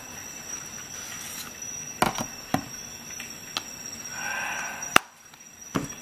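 Handling noise of a folded multi-tool: nylon sheath rustling and a series of light metal clicks, with a sharp click about five seconds in as the tool is set down on a metal tin can.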